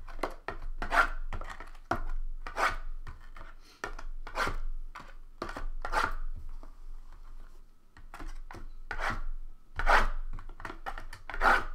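Cardboard and plastic packaging being handled and worked open by hand: a series of irregular scraping, rubbing strokes, roughly one every one to two seconds.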